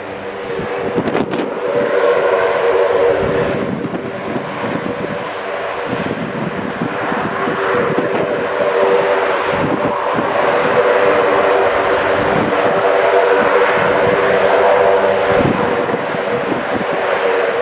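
RAF C-130 Hercules turboprop engine running on the ground for an engine test run: a steady propeller drone with a mid-pitched hum that grows louder about two seconds in. Wind gusts buffet the microphone.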